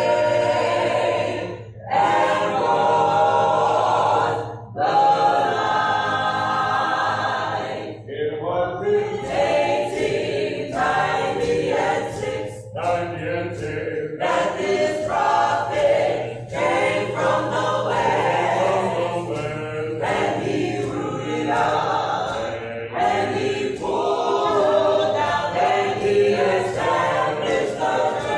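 A cappella gospel choir singing in several voices, in phrases broken by short pauses for breath.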